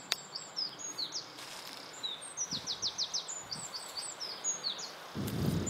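A songbird singing in the hedgerow: a varied run of short, high notes with quick trills, continuing throughout. Near the end comes a brief low rustle of handling or movement.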